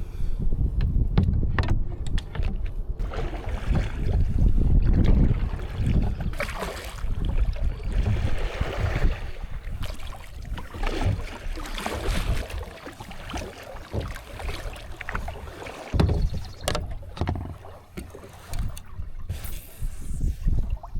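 Heavy wind buffeting the microphone in uneven gusts, with water splashing and knocking against a kayak's hull.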